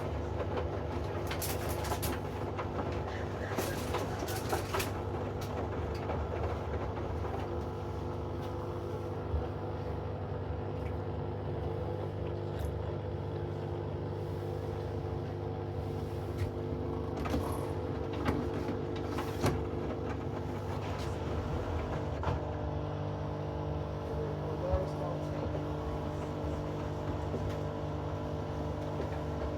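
Hoover inverter washing machine running mid-cycle: a steady motor hum with scattered short clicks and knocks from the load tumbling in the drum.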